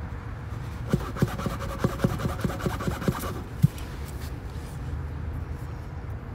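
A quick run of about a dozen light clicks, some four or five a second, from tyre puncture repair tools being worked on the tyre, over a steady low background rumble.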